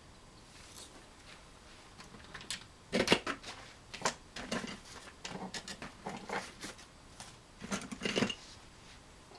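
A Swiss Army knife being handled: sharp metal clicks and knocks as its blades are opened and snapped shut, loudest in a burst about three seconds in and again near the end.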